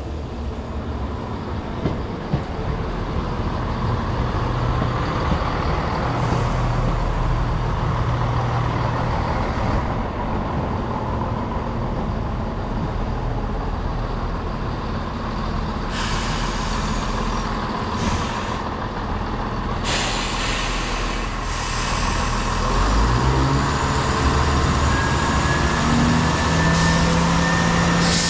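Class 170 Turbostar diesel multiple unit running along the platform, its underfloor diesel engines droning and wheels rumbling on the rails. The engine note steps up about two-thirds of the way through, with short spells of hiss around the middle and a faint high squeal near the end.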